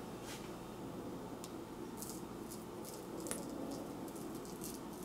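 Faint scrapes and light ticks of a metal spoon tipping freshly ground coffee onto a sheet of paper, a few scattered over low room tone.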